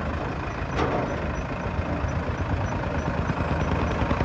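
Heavy diesel vehicle engine running steadily at low revs, with one short knock about a second in.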